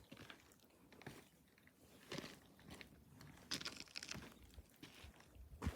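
Faint footsteps crunching on loose volcanic rock, in uneven steps about one a second, the sharpest one near the end.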